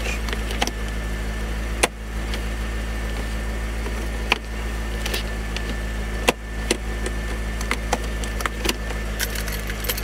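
Car engine idling with a steady low hum, with a handful of sharp clicks from the automatic gear shifter being worked by hand; the loudest clicks come about two, four and six seconds in.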